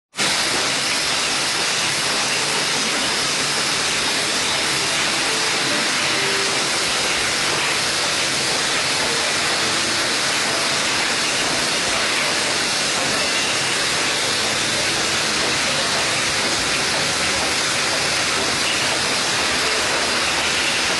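Steady, even hiss that holds one level throughout, with no rhythm or pauses.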